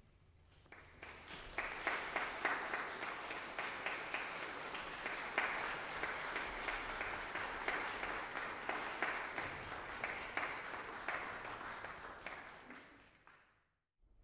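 Audience applauding: many hands clapping together, swelling in about a second in and fading away near the end.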